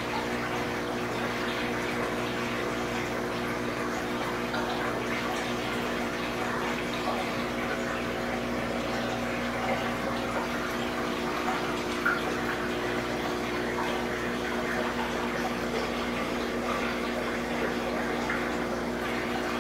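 Large aquarium's filtration running: water splashing and trickling steadily into the tank over the even hum of the pump.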